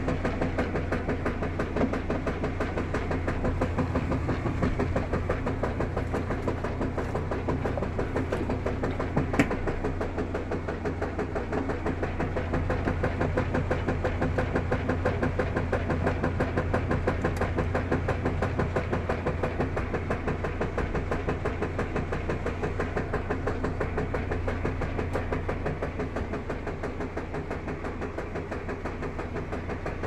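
Top-load washing machine agitating a load in soapy water: a steady low motor hum under a fast, even, rhythmic churning and sloshing.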